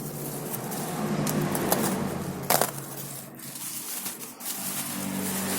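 Packaging and a laptop keyboard being handled: rustling and crinkling with a few sharp clicks, the loudest about halfway through.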